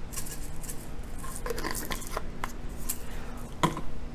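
Crushed red pepper flakes shaken from a spice jar with a sifter lid, making a run of quick, irregular rattling ticks, with one sharper click near the end.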